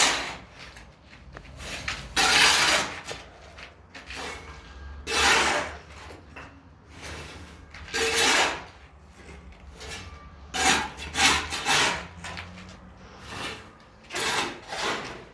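A series of rasping, scraping strokes, each about half a second to a second long, coming every two to three seconds, with a quick run of several strokes past the middle.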